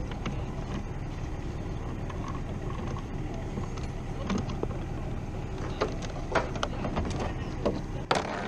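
An engine idling steadily, with a few sharp metallic clicks and clanks in the last few seconds.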